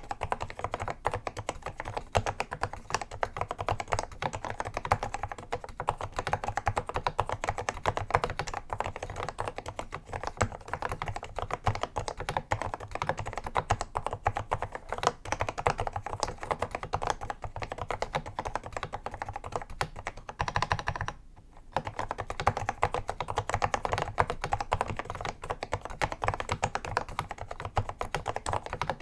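Continuous fast typing on an Apple M0110A keyboard with Mitsumi Standard Mechanical linear switches, a dense run of key clicks and bottom-outs. There is a brief pause a little over two-thirds of the way through.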